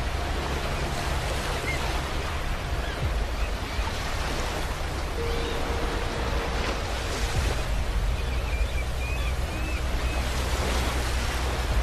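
Sea waves washing onto a beach: a continuous surf hiss and rumble with no sharp breaks. A few faint high chirps come in around the ninth second.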